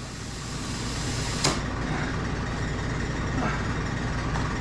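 Air compressor running steadily, used to inflate a freshly mounted Jeep tire, with one sharp click about a second and a half in.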